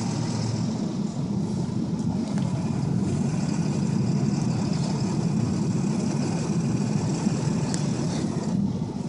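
2002 Ford F-250 pickup driving through deep snow, its engine and tyres making a steady rumble.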